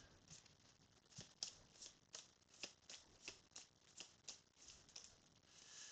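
Faint shuffling of a deck of oracle cards: a steady run of soft card flicks, about three a second, as the cards are worked through before a pull.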